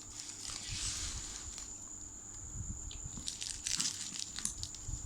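Packaging rustling and crinkling as it is opened by hand, with softer rustling in the first second or so and a run of sharper crackles about three to four and a half seconds in.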